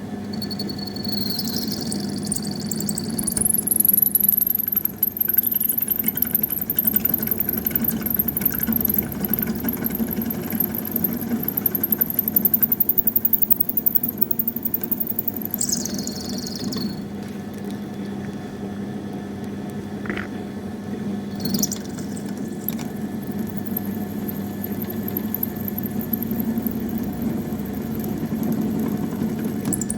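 Machine tool running with a steady motor hum while a cutting tool squeals in a thin, very high-pitched tone against 316 stainless steel. The squeal starts about a second in, climbs higher within a few seconds, stops around the middle and comes back for the last third. This is typical of a tool rubbing on hard, work-hardened stainless that dulls high-speed steel quickly.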